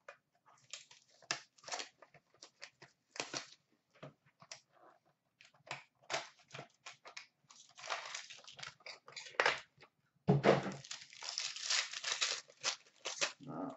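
Hands opening a box of Upper Deck SP Game Used hockey cards and tearing into a card pack. Scattered crinkles and clicks give way, about eight seconds in, to a longer run of tearing and crinkling of the wrapper.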